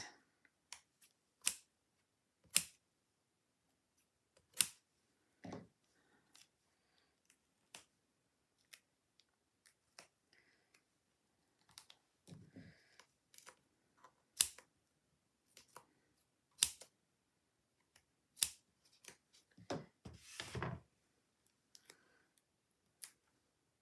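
Small craft scissors snipping foam mounting tape into squares while the pads are placed on cardstock: a string of separate, irregular sharp snips about a second apart, with a couple of duller taps.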